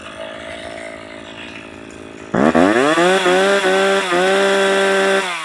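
Poulan 330Pro two-stroke chainsaw engine idling, then throttled up about two seconds in to a high, steady rev with two brief dips, and let back down near the end. A test rev while tuning the carburettor's mixture screws.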